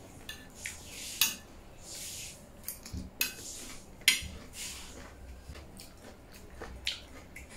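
Metal fork clinking and scraping against ceramic plates in several sharp strikes, the loudest about three and four seconds in, with close-up chewing sounds between them.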